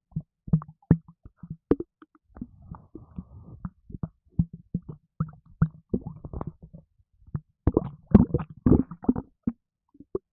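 Human stomach gurgling and rumbling: many short wet pops and gurgles, growing denser and louder for a couple of seconds near the end. This is gas and fluid moving through the gut after an energy drink, which the owner says made them gassy.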